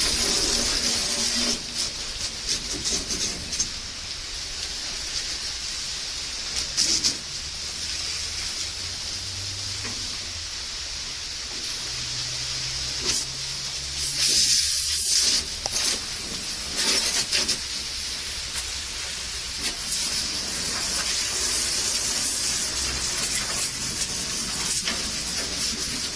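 High-pressure water jet hissing as it sprays the metal panels of a combine harvester, with several short louder bursts as the jet sweeps across the machine.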